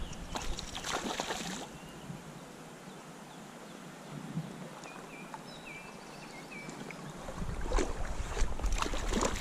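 Water splashing and sloshing as a hooked wild trout is played and brought in on the fly rod, loudest at the start and again near the end. In between, a quieter stretch where only the creek's steady running is heard.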